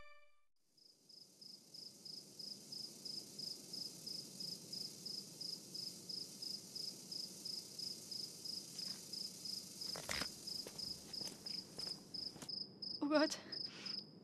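A cricket chirping steadily, about four chirps a second, over a faint background hiss. There is a single sharp knock about ten seconds in, and a person's voice briefly near the end.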